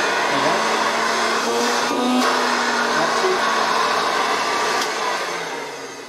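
Hoover Dustette Model 100 hand vacuum cleaner running steadily with a constant motor hum and rushing air: the freshly overhauled motor works. About five seconds in it starts running down.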